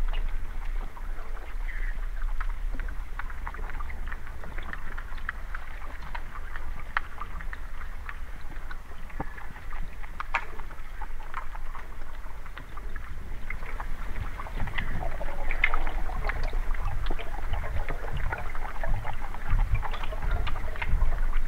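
Muffled underwater sound picked up by a camera held below the surface beside a kayak: a steady low rumble of moving water with scattered small clicks and ticks, getting a little louder in the second half.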